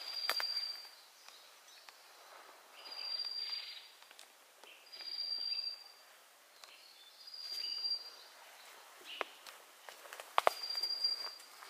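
A bird's high, steady whistled call, repeated five times about every two and a half seconds, over the sharp snaps and crackle of footsteps through forest undergrowth, with one loud snap near the end.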